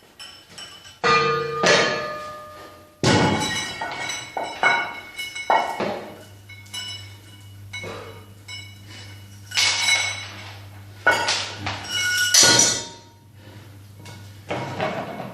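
Metal gym weights knocking and clanking together several times, some strikes leaving a brief metallic ring, as dumbbells are handled and changed.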